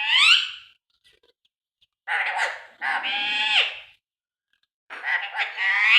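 A parrot calling in a series of high-pitched squawks, four calls in all. The first rises in pitch at the start, two follow in quick succession halfway through (the longer one drops sharply at its end), and the last comes near the end.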